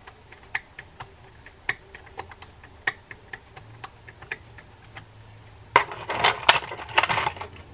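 Small metallic ticks of a screwdriver working the steel bridge screws of a vintage Ocean City 6051 fishing reel, irregular, about one or two a second. About six seconds in comes a louder, quick run of metal clinks and rattles as the screws and the screwdriver are handled on the bench.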